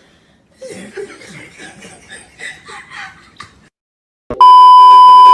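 Soft chuckling and snickering, then about four seconds in a sudden, very loud, steady high beep that lasts about a second.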